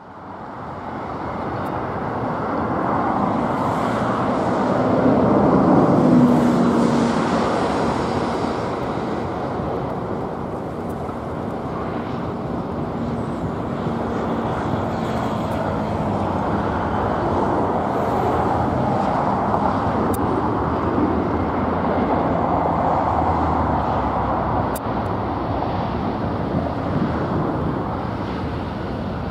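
Jet airliner engine noise swelling to a peak about six seconds in and easing off, over steady background noise near the runway.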